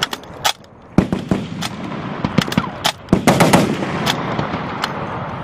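Machine guns firing on a range, in short bursts and single shots with a brief lull about half a second in. There is a rapid run of shots a little past the middle.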